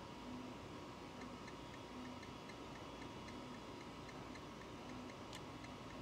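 Faint, even ticking, about four ticks a second, with a short, faint low hum every second or so, from the amplifier dyno bench as it runs a four-channel car amplifier up toward clipping.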